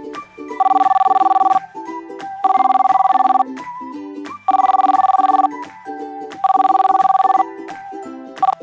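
A telephone ringing four times: each ring a trilling two-tone burst about a second long, with about a second between rings. Light plucked background music plays underneath.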